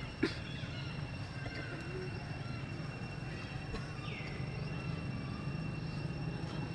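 Steady outdoor background hum, low-pitched, with a faint high whine over it. A sharp click comes just after the start, and a single short high-pitched call about four seconds in falls in pitch and then holds.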